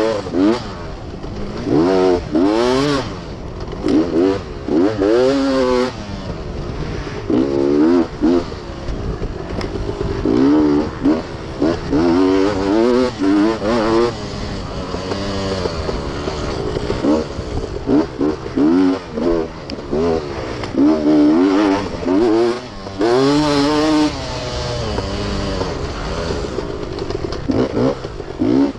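Beta off-road dirt bike engine revving up and down again and again as the throttle is worked, with a rise and fall every second or two.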